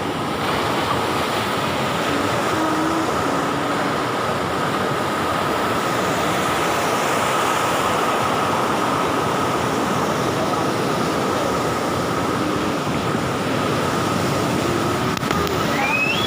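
Big waves making a steady, dense rushing noise, with a thin steady whine running through it.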